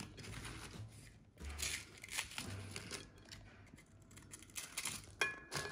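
Crisp baked puff pastry squares crackling and flaking as a knife cuts them in half, in irregular bursts.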